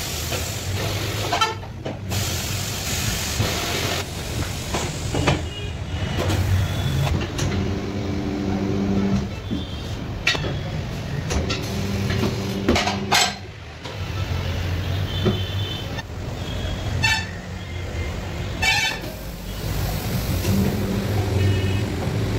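Tyre changer machine at work: its turntable motor hums steadily in several short spells of a second or two, with sharp knocks of metal and rubber between, over a constant background of traffic noise.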